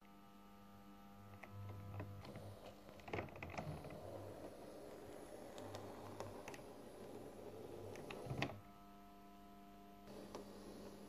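TT-scale model Köf shunting locomotive running under analog power: a faint motor whir that builds over a few seconds, with sharp clicks as the wheels cross rail joints and points, cutting off suddenly about eight and a half seconds in. A steady low hum runs underneath.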